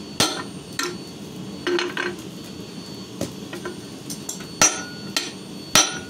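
Hammer blows on a handled top tool set on red-hot steel over a steel-plate anvil, driving the metal back while forging a leaf. About ten irregular metallic strikes, the last two loudest, some leaving a brief ring.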